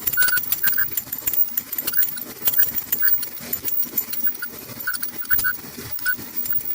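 Front-load clothes dryer running with its drum turning, giving a string of short, high squeaks among light clicking and rattling. The owner takes the squeaking for worn drum sliders.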